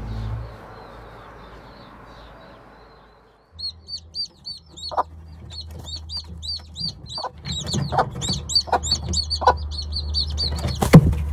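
Background music fades out, then a domestic hen clucks in short calls while a small bird chirps rapidly and repeatedly. A sharp knock sounds near the end.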